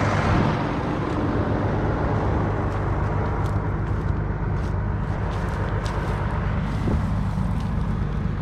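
Farm tractor's diesel engine running steadily at a constant speed.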